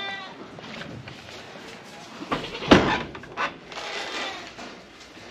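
A few sharp knocks and clunks, the loudest about two and a half seconds in, with a goat bleating faintly afterwards.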